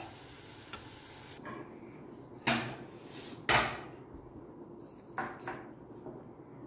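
Hash browns sizzling in oil in a frying pan for about the first second and a half, cutting off suddenly; then a few separate knocks, the loudest about three and a half seconds in.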